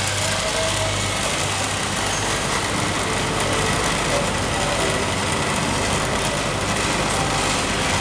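Oil-sealed vacuum pump running steadily, pulling the vacuum down on a small cryogenic sleeve through a flexible hose.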